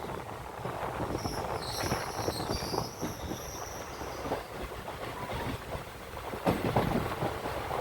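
Passenger train of the Nilambur–Kottayam Express running along the track. A high-pitched wheel squeal starts about a second in and lasts roughly three seconds. Near the end there is a short run of loud clunks from the wheels on the rails.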